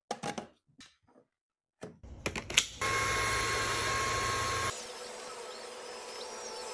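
Tineco Pure One A50S cordless stick vacuum running with a steady whine for about two seconds, then dropping to a quieter steady hum. Before it, a few sharp clicks separated by short silences.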